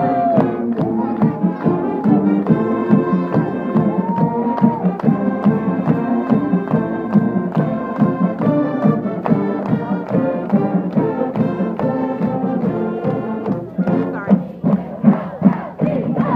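Brass band music with held notes over a steady drum beat, mixed with crowd noise and hand claps close by; the sharp hits grow louder near the end.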